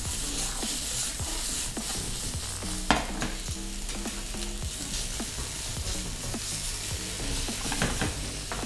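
Bacon and sliced mushrooms sizzling in a stainless steel frying pan as the pan is shaken and the food stirred, with light clicks and a sharper knock about three seconds in.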